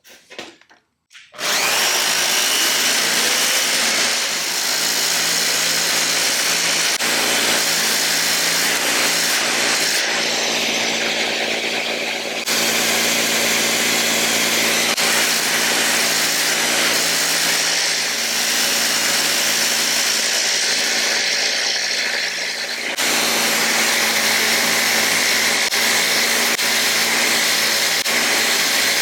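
An electric power tool starts about a second in and runs steadily, with its load shifting slightly a couple of times.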